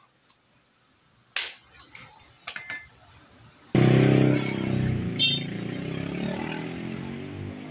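A sharp metallic clack and a few light clinks, then a little past halfway a motor vehicle engine comes in suddenly and loud. It keeps running, gradually fading.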